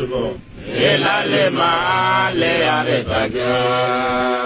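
A man chanting solo in long drawn-out notes with wavering pitch, after a brief break about half a second in.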